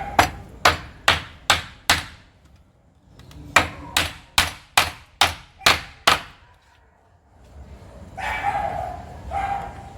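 Hammer driving nails into wooden boards: a run of about five quick blows, a short pause, then about seven more at roughly two to three blows a second.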